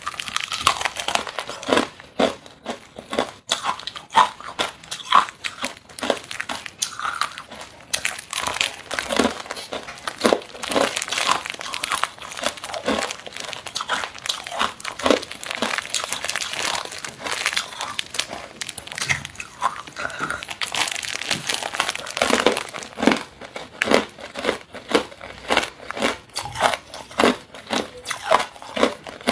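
Clear ice cubes being bitten and crunched out of a plastic ice-cube bag, with many sharp irregular cracks. The thin plastic crinkles as the bag is handled.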